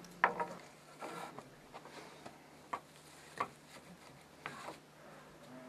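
Faint scratchy rustles and a few light knocks as the dark warp threads of an old wooden vertical loom are worked by hand.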